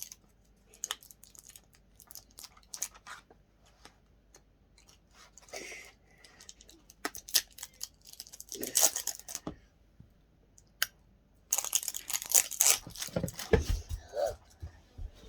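Plastic toy packaging being torn and crinkled open by hand, in scattered rustling bursts with small clicks, and a couple of dull thuds near the end.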